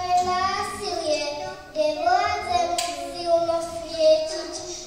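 A young girl singing solo, holding long notes with short slides between them.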